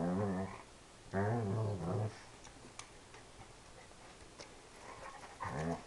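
Doberman's low, drawn-out moaning vocalisations in play, almost like a cow mooing: one call at the start, a second about a second in that lasts about a second, and a short one at the end, with faint light ticks in the quiet between.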